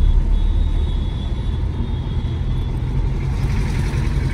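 Steady low rumble of a Tata Nexon driving along an expressway: tyre, wind and engine noise while cruising.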